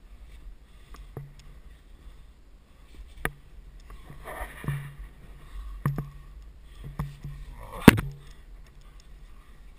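A climber scuffing and shifting against sandstone while jamming taped hands into a crack, with a handful of sharp knocks against the rock; the loudest knock comes near the end. A low rumble of wind or handling sits underneath.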